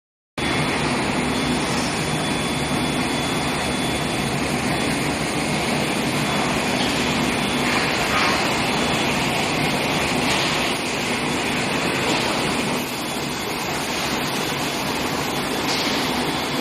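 Steady machinery noise of an induction heating furnace line running for oil drill pipe, with a low hum and a faint high steady whine. Every few seconds a brief hissing surge rises over it.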